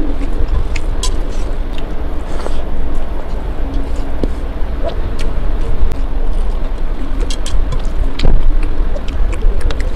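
A steady low rumble throughout, with small scattered clicks and squelches of chewing and of rice being mixed by hand on a steel plate.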